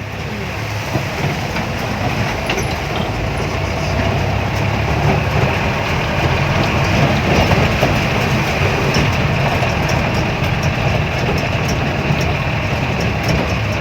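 Diesel truck engine swapped into a Daihatsu Taft 4x4 running steadily, growing louder over the first few seconds and then holding level, with scattered small rattles over it.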